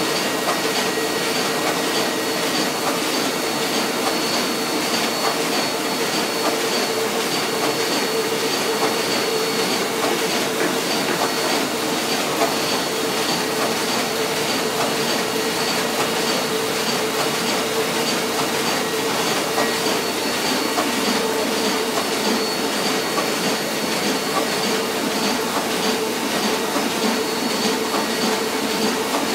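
Roland 200 sheetfed offset printing press running: a steady mechanical clatter with a constant hum and a thin high whine over it.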